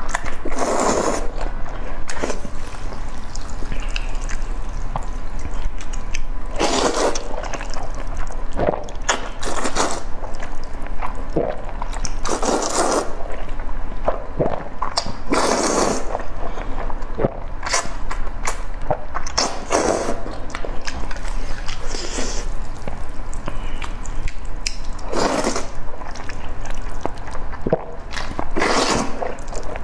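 Close-miked slurping of saucy noodles: loud wet slurps every three seconds or so, with softer wet mouth sounds between them.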